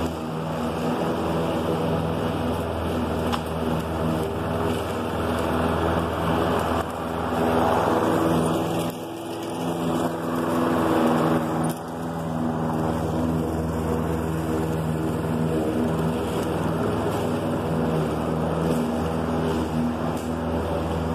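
Husqvarna LC 153S lawn mower with a Briggs & Stratton 675EX single-cylinder engine, running steadily while cutting short young grass. The sound grows louder as the mower passes close by near the middle, and the engine note dips briefly twice there.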